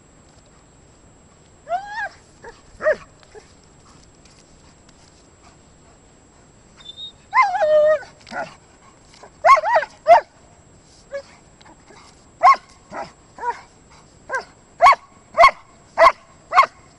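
German Shepherd giving short, excited yipping barks as it paws at a stick: a few at first, a longer wavering whine-bark about seven and a half seconds in, then a quick run of barks roughly two a second toward the end.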